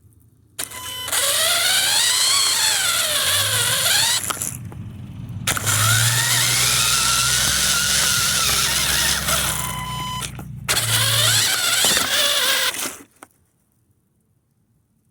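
RC car's motor whining over a hiss in three runs, its pitch rising and falling as the throttle is worked. It stops suddenly about two seconds before the end.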